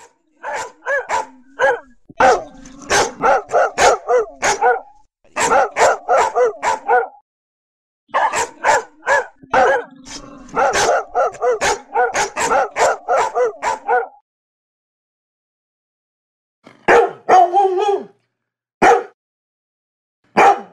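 Dog barking in quick runs of several barks a second, broken by short pauses. After a silence of a couple of seconds, a Labrador gives a few barks in two short groups near the end.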